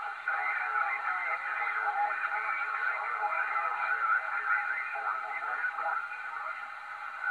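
CB radio receiver tuned to single sideband on the 11-metre band, playing static hiss with faint, garbled voices of distant stations wavering through it.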